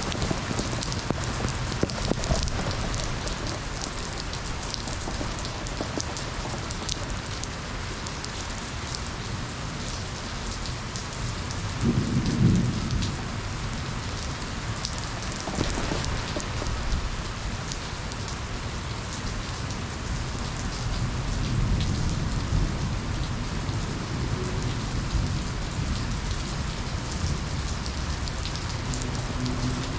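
Steady rain falling on surfaces during a thunderstorm. A short low rumble of thunder comes about twelve seconds in, and a softer one around twenty-two seconds.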